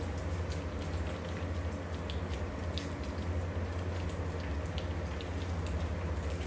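A litter of four-week-old Aussiedoodle puppies lapping and smacking at soaked, mashed puppy food in a shared bowl: many small irregular wet clicks, over a steady low hum.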